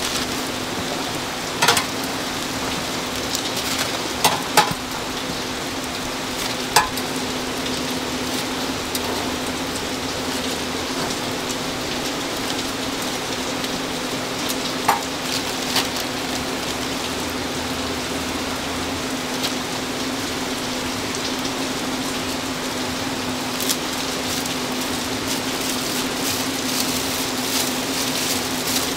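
Sweet potato balls deep-frying in hot oil: a steady sizzle under a constant low hum, with a few sharp clicks of utensils, most of them in the first seven seconds.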